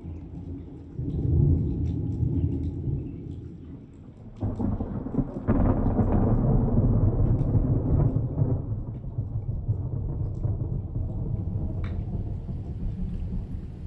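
Thunder rumbling. A sharper clap comes about four and a half seconds in and a louder peal a second later, which rolls on for several seconds and then slowly fades.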